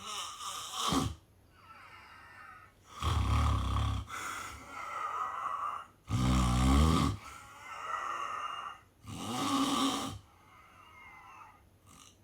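Snoring in sound sleep: four loud snores about three seconds apart, each followed by a softer breath out.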